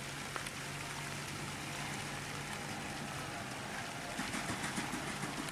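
Steady hiss of outdoor background noise with a faint low hum. About four seconds in, a short irregular run of faint soft knocks rises over it.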